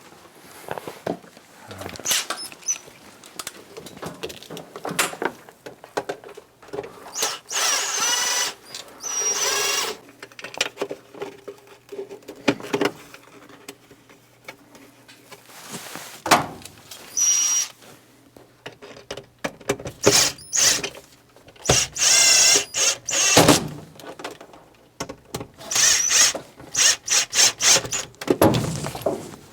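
A handheld power tool run in repeated short bursts, its motor whine wavering with the trigger, with quieter gaps of handling between.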